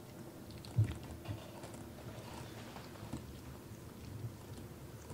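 A Ragdoll cat grooming, licking its raised front paw: soft, irregular licking and mouth sounds with small clicks, and a low thump a little under a second in.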